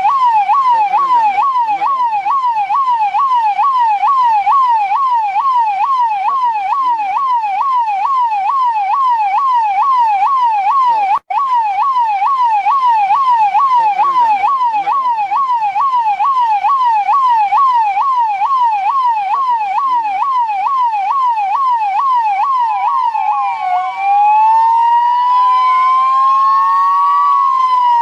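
New Delhi police siren sounding a fast electronic warble, its pitch sweeping up and down about twice a second, with a momentary cut about eleven seconds in. Near the end it changes to a slower wail, rising and falling over a couple of seconds with more than one tone sweeping at once.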